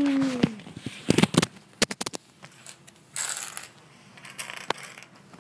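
Hard plastic Lego pieces clicking and clattering as the model is handled: a quick cluster of clicks about a second in, a rustle near the middle and one last click near the end. A voice holding a note fades out in the first half second.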